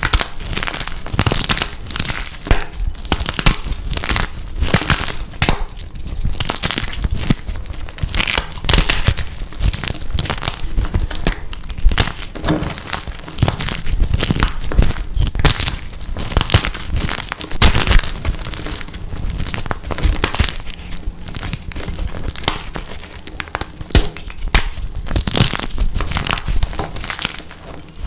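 Blocks of dyed gym chalk being crushed and crumbled close to the microphone: a dense, irregular crunching and crackling that keeps going with small pauses.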